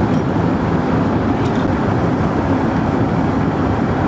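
Water rushing from a sheared fire hydrant, a loud, steady rush with no break.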